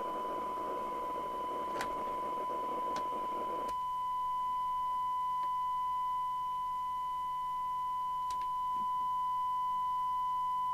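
The Magpie Autoscan 5000 CB receiver is reproducing a steady single-pitch test tone from an FM test signal, with a background hiss. About four seconds in the hiss drops away abruptly, leaving the clean tone, as the receiver's noise quieting is measured. A few faint clicks occur along the way.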